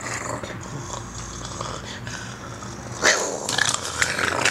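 Boston Terrier play-growling as it lunges and snaps at a hand, getting louder about three seconds in with a burst of quick clicks and scuffles.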